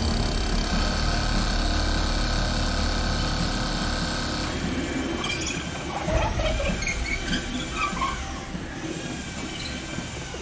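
A power drill running steadily as it bores into concrete rubble, stopping about four and a half seconds in. It is followed by scattered short high squeaks and scrapes.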